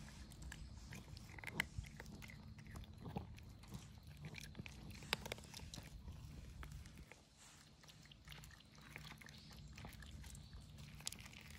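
Cats chewing dry kibble: faint, scattered crunching clicks over a low steady background hum.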